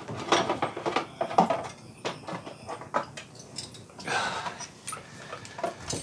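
Hand tools clicking and clanking against metal engine parts in an irregular run of knocks and rattles, with a brief scrape about four seconds in.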